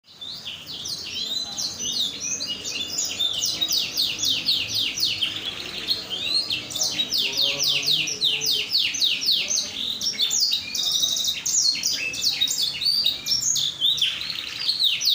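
Domestic canary singing a long, continuous song of rapid trills and quick falling notes, with hardly a break.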